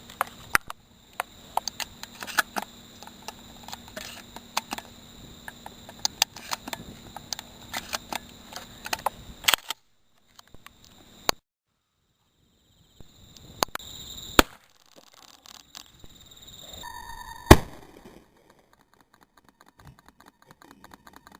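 A run of sharp clicks and knocks over steady cricket chirping, broken by dead-silent gaps, then a single loud 12-gauge shotgun shot about three-quarters of the way through.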